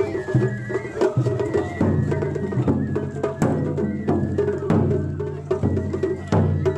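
Japanese festival float music: the float's large taiko drum beaten in a quick, driving rhythm with sharp wooden clicks, over a high held melody line that moves in steps.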